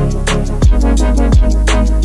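Background music: an electronic track with a deep, sustained bass and heavy kick-drum hits.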